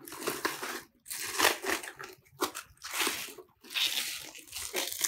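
Plastic stretch wrap on a computer monitor crinkling and rustling as it is handled and pulled off, in a series of short irregular bursts about a second apart.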